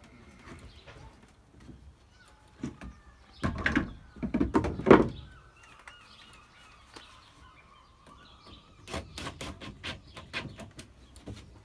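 Knocks and scraping of a wooden panel being handled into an overhead plywood cupboard, loudest about four to five seconds in, with a run of quick taps near the end. A bird chirps in the background.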